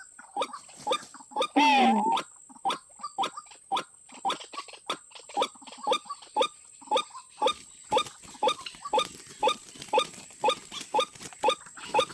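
White-breasted waterhen calling: a fast, even run of short falling notes, about two to three a second, with one louder, drawn-out wavering call about a second and a half in.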